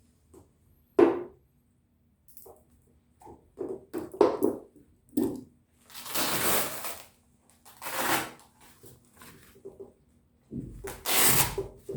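Handling noises: a sharp knock about a second in, scattered clicks and taps, and several rough rustling or ripping noises, each about a second long.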